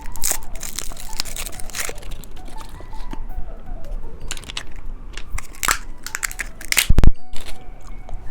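Candy wrapper crinkling and tearing in irregular crackles as a chocolate is unwrapped, with one loud knock about seven seconds in.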